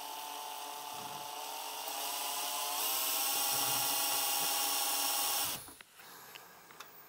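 Cordless drill running, its bit drilling into the metal amplifier chassis through the mounting hole of a power resistor to mark the hole. The whine rises in pitch and gets louder about three seconds in, then stops about two seconds later.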